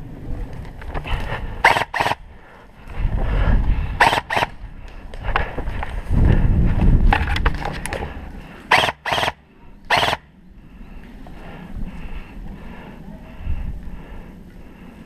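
Airsoft guns firing sharp single shots, mostly in pairs: seven cracks over about eight seconds. Heavy low rumbling of movement and handling close to the microphone comes in between them.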